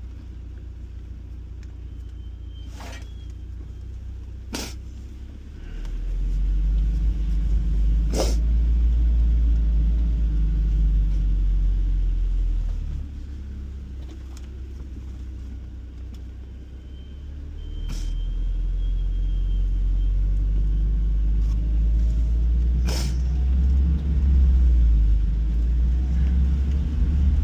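UAZ Patriot off-road vehicle driving, a steady low engine and road rumble that grows louder twice, from about six to thirteen seconds in and again from about eighteen seconds on. Five sharp knocks are scattered through it.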